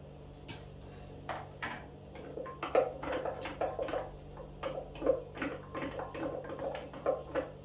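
Kitchen utensils knocking and clicking in a quick, uneven run of short taps, sparse at first and then about three a second from a couple of seconds in, as fruit is cut or scooped.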